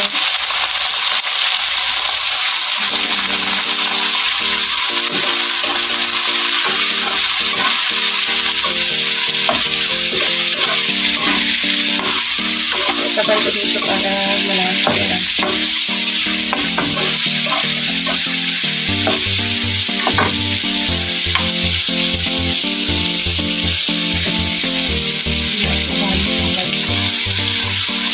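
Pork pieces sizzling as they fry in a pan, stirred now and then with a metal ladle. Background music plays under the sizzle from about three seconds in.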